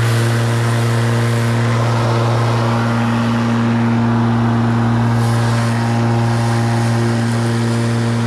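Spear & Jackson 40V cordless rotary lawnmower running, its electric motor and blade giving a steady, even hum as it cuts grass.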